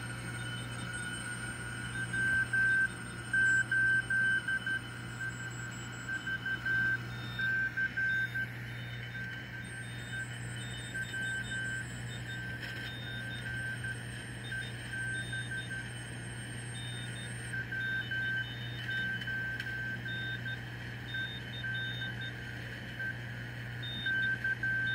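Morse code from a 4SQRP Cricket 40A CW transceiver's audio: a tone keyed on and off in dots and dashes, loudest in the first several seconds and fainter after. Beneath it runs a steady low hum and hiss, the common-mode hum that remains after the station was regrounded.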